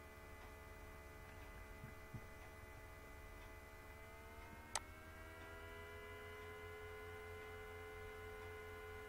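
Faint steady electrical hum, a low buzz with a stack of thin tones above it that rise slightly in pitch about four to five seconds in. A single sharp click sounds near the five-second mark.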